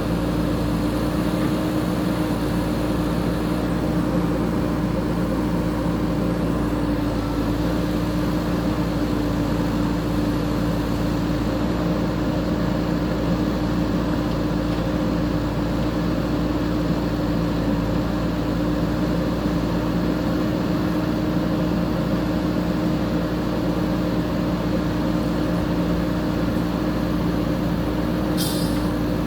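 JCB 3DX backhoe loader's diesel engine running steadily, with a brief high hiss about a second before the end.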